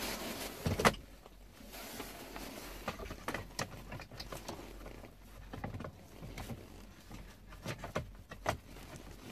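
Plastic steering-column trim covers being handled and fitted around the column: one sharp loud click about a second in, then scattered small clicks and plastic rustling.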